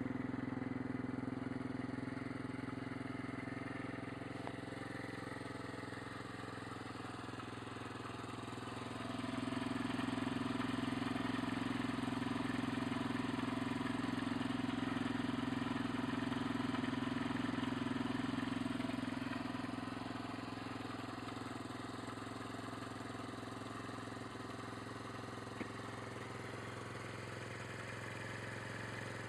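Superbyke RFX50 50cc motorbike engine idling steadily at an even pitch, a little louder for about ten seconds in the middle.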